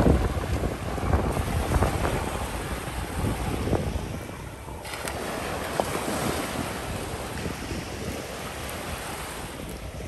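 Small surf waves washing up and running back over a sandy beach, with wind buffeting the microphone, gustiest in the first few seconds.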